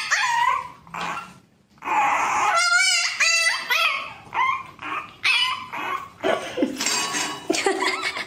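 Puppy crying in a string of high, wavering whines and yelps, with a brief pause about a second and a half in.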